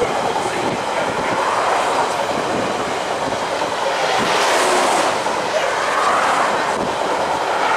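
Passenger train running at speed, heard from an open-air viewing carriage: a steady rush of wind and rail noise with the clatter of wheels on the track, the hiss swelling briefly about halfway through.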